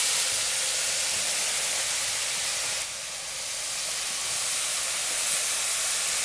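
Loud, steady sizzling hiss as diced pork offal and its marinade liquid are poured into a pan of hot fat with frying bacon and onion. The hiss dips briefly about three seconds in.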